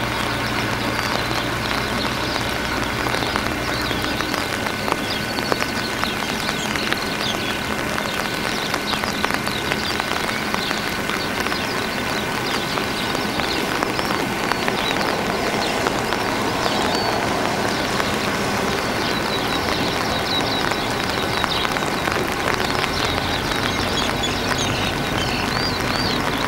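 Diesel-electric locomotive running slowly toward the station at walking pace, a steady engine drone under a crackly noise, with high chirping throughout. A low hum drops away about four seconds in.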